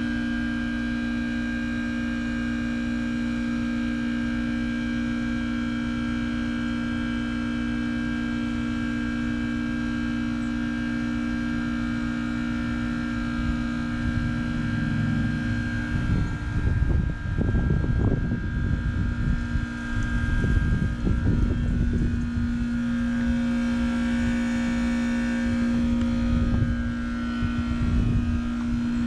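2006 Trane XB13 heat pump's reciprocating compressor humming steadily partway through a defrost cycle. About halfway in, the hum shifts in pitch and an uneven rushing noise swells and fades over it.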